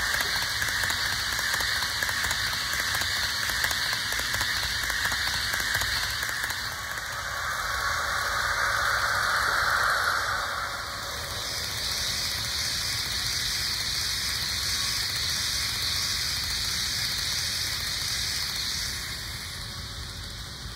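A steady rushing hiss, like rain, whose tone shifts about seven seconds in and again about eleven seconds in, fading slightly near the end.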